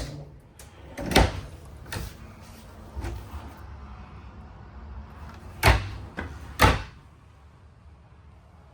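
Kitchen cabinet doors and drawers in a travel trailer being opened and shut, giving about five sharp knocks and clunks, the two loudest close together near the end.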